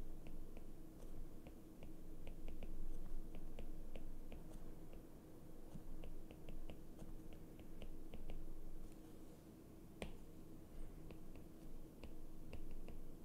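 Stylus tip tapping and clicking on a tablet's glass screen while words are handwritten: irregular light clicks in quick runs, with one sharper click about ten seconds in.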